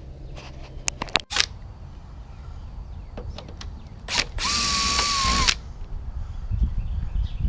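Cordless drill-driver runs for about a second with a steady motor whine, after a few handling clicks.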